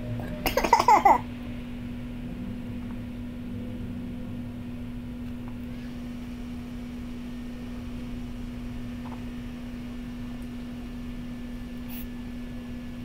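A man's short laugh, a quick run of about five pulses, about half a second in. After it there is only a steady low electrical hum.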